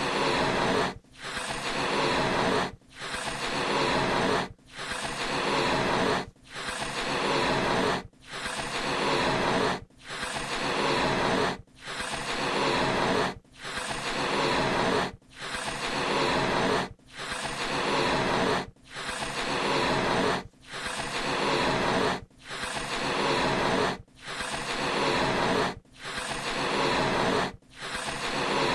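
Balloons being blown up with repeated breaths of air into the balloon. Each puff is a breathy rush that grows louder over about a second and a half, with a brief break between puffs, in a steady rhythm of about one every two seconds.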